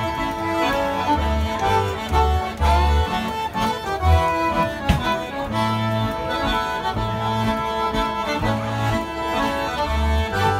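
A fiddle and a piano accordion playing a tune together, with the accordion's bass notes pulsing underneath the melody.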